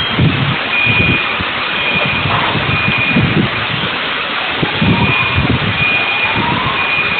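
Loud, continuous roar and rumble in the seconds right after a large bomb explosion, with irregular surges of low rumble. A high tone beeps on and off about once a second through it, and faint rising wails come and go.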